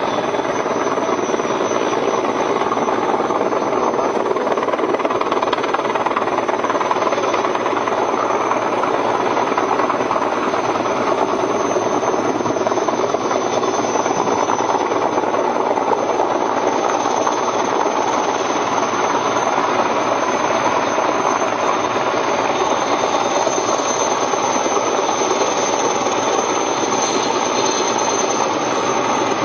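Sikorsky S-64 Skycrane heavy-lift helicopter hovering close by: a steady, rapid chop of the rotor blades over engine noise.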